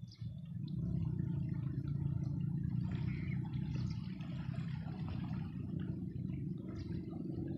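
Wind buffeting a phone's microphone: a steady low rumble that rises and falls.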